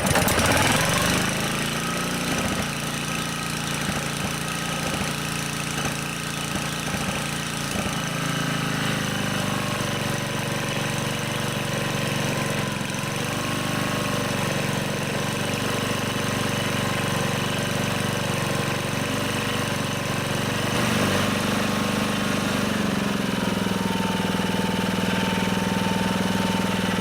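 Honda HR215 lawn mower engine catching on choke and then running at a steady idle, its pitch stepping to a new speed about a third of the way in and again late on. It holds an even idle without surging, the sign that the cleared slow-speed jet has fixed the problem.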